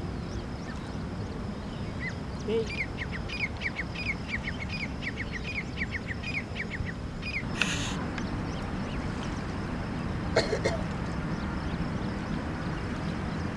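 A bird calling a fast run of short chirping notes, about four a second, for some four seconds, over steady outdoor background noise. A brief rush of noise comes about halfway through.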